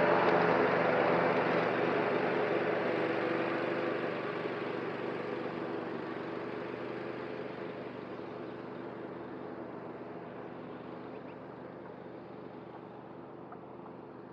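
Cub Cadet ZTS1 zero-turn mower running as it passes close and drives away, its engine hum fading steadily into the distance.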